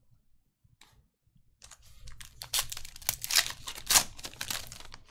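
Foil wrapper of a Panini Prizm retail basketball card pack being torn open and crinkled by hand. The crackly tearing starts about a second and a half in and runs on in quick, uneven bursts.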